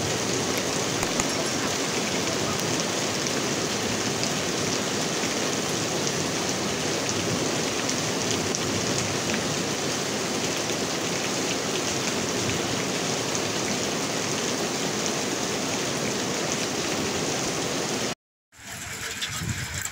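Heavy rain pouring steadily, a dense hiss with fine pattering of drops. Near the end it cuts off abruptly for a moment, and a quieter outdoor sound begins.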